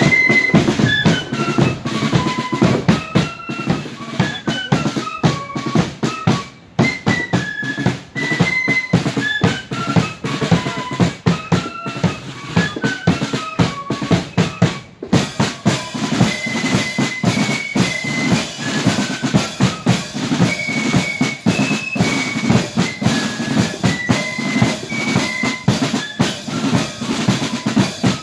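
Marching flute band playing a tune: flutes carrying a high melody over steady snare and bass drum beats, with short breaks between phrases.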